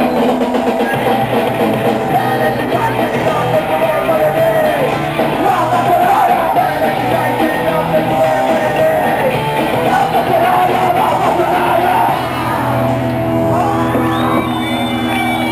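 Punk band playing live: electric guitars, bass and drums with shouted singing, continuous and loud.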